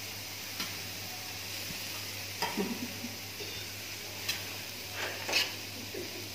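Shredded vegetables for kottu sizzling on a hot flat-top griddle while a metal spatula stirs and turns them, with a few irregular scrapes and clinks of the spatula on the plate. A steady low hum runs underneath.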